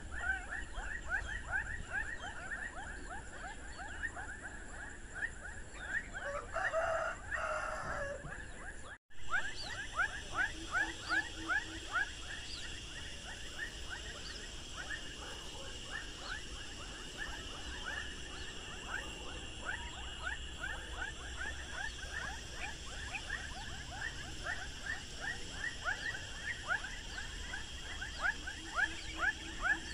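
Outdoor chorus of many calling animals: short, quick downward chirps, several a second, over a steady high insect drone. The sound cuts out briefly about nine seconds in.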